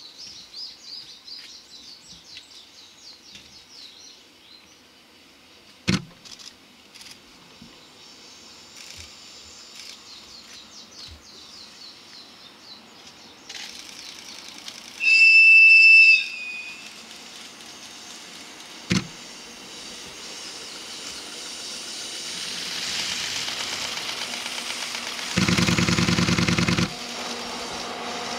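Birds chirp faintly. Then a JR EF64 electric locomotive sounds one high-pitched whistle blast of about a second, the loudest sound here. After that the noise of the locomotive-hauled train grows as it approaches on the rails, with a louder stretch of a second or two near the end.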